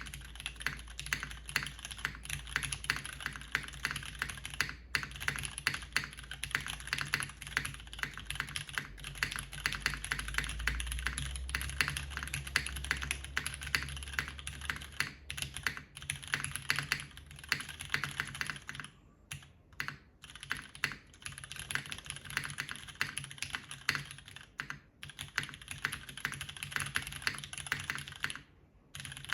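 Continuous fast typing on a JTD Ovinnik tenkeyless mechanical keyboard with MX Purple switches, a top-mounted 5052 aluminium plate and GMK Beta R1 keycaps. The keystrokes run in a dense stream, with a few brief pauses in the second half.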